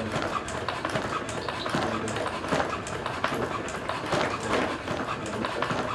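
The passive-ankle biped robot Mercury's feet tapping on a floor mat as it keeps taking recovery steps in place: a quick, uneven patter of footfalls.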